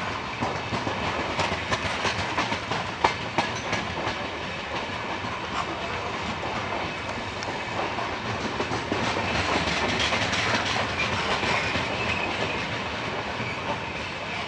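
Indian Railways passenger coaches rolling past, the wheels clacking over rail joints over a continuous rumble. The sharp clacks are thickest in the first few seconds, with one loud knock about three seconds in.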